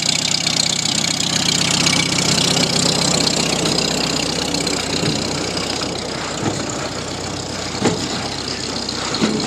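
International Harvester No. 46 baler running empty off a tractor, freshly greased. A steady engine drone runs under a high, busy rattle from the baler's moving parts; the rattle eases about six seconds in, and a few sharp knocks come near the end.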